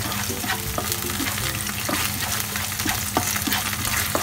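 Sauce with chopped spring onion and parsley sizzling in a frying pan while a spatula stirs it, with scattered light clicks of the spatula against the pan.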